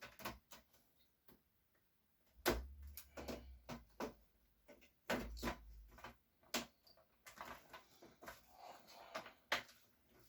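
Irregular small clicks and knocks of laptop parts being handled and fitted back together, with a few sharper knocks about two and a half, five, six and a half and nine and a half seconds in.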